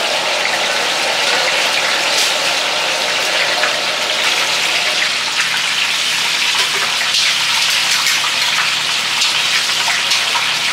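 Hot oil sizzling steadily in a wide wok as oyster fritters and fish deep-fry, with faint scattered crackles through the hiss.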